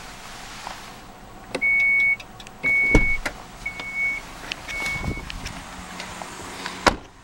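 2012 Dodge Grand Caravan's power liftgate warning chime beeping four times, about once a second, as the liftgate is opened from the button inside the van, over a steady low hum. A sharp knock sounds near the end.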